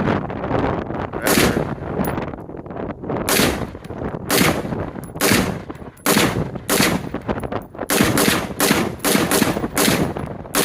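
AR-15 rifle fired semi-automatically in a rapid string of a dozen or more shots, a magazine dump: one shot, a pause of about two seconds, then shots coming faster and more evenly toward the end. Wind on the microphone between the shots.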